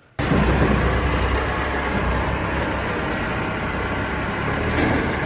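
A vehicle engine running at a steady idle, cutting in abruptly just after the start.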